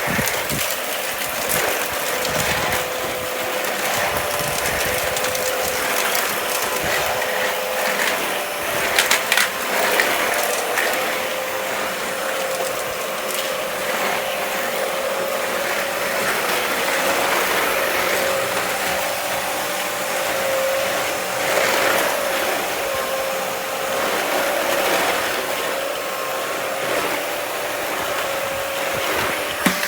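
Dyson Ball Animal 2 upright vacuum running with a steady whine, sucking up sawdust and wood debris that crackles and rattles through it, most around nine seconds in. The motor is worn out and close to burning out.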